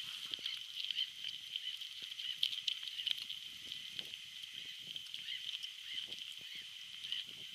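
Siberian husky sniffing and snuffling in dry grass close by, with short irregular rustles and crackles of the dry stalks as it noses about. A steady high-pitched sound runs underneath.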